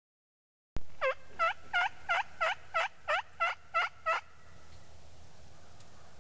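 Turkey calling: a quick, even series of about eleven yelping notes, roughly three a second, starting abruptly and lasting a little over three seconds, then stopping.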